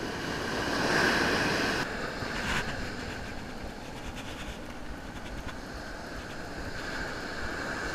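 Ocean surf breaking on a beach with wind, a steady rush of noise that swells a little about a second in.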